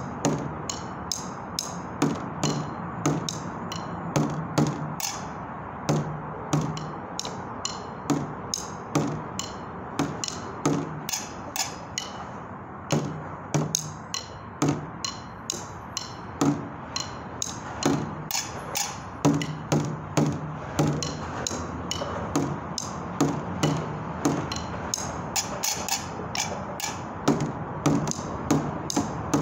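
Street drumming on found objects: wooden sticks beating a quick, steady rhythm on a plastic container and rocks, each hit a sharp click, many with a low hollow thud.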